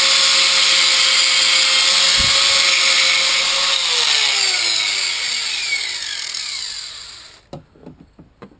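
Electric angle grinder running and grinding down a metal hanger strap to narrow it. About four seconds in it is switched off and its whine falls steadily as the disc spins down over about three seconds, followed by a few light handling knocks.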